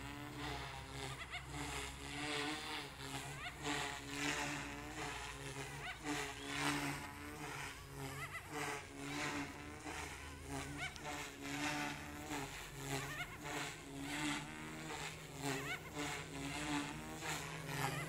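Goosky S2 electric RC helicopter in flight, its rotors and brushless motors making a buzzing whine. The pitch wavers up and down and the sound swells and fades again and again, about once a second, as it manoeuvres.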